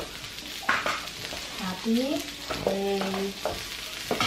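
Food sizzling steadily on an electric teppanyaki grill plate as hot dogs, crab sticks and fish balls fry, with a few sharp clicks. Two short vocal sounds come through around the middle, the first rising in pitch.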